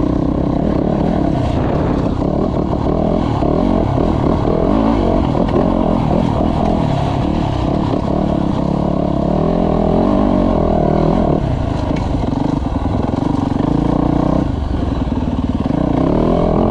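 Dirt bike engine running hard as it is ridden, the revs rising and falling through the gears.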